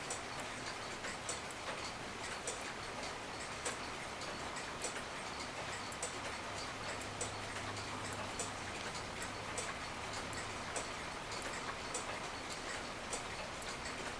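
Regula cuckoo clock movement ticking steadily, its verge escapement beating with freshly oiled pallets.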